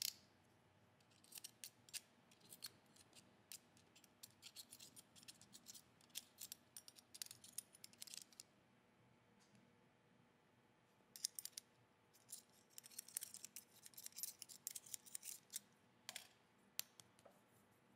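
A thin utility knife blade scraping and ticking in the slots of a steel ER32 collet, picking out packed dust: runs of short, faint metallic scratches, a pause of a few seconds in the middle, then another run.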